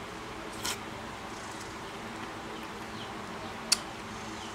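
Two short, sharp cracks about three seconds apart, from Burmese grape fruits being cracked open by hand, over a steady low hum.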